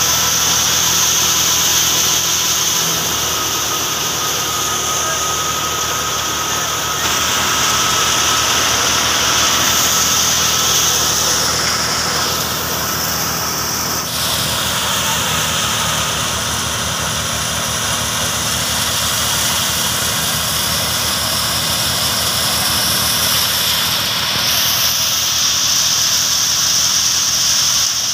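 Tractor-driven wheat thresher running steadily: the tractor engine's drone under a loud, high hiss from the threshing drum, driven through the PTO shaft and belts.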